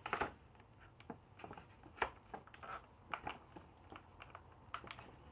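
Clear plastic clamshell packaging being handled in the hands: scattered crackles and clicks, the sharpest just after the start and about two seconds in.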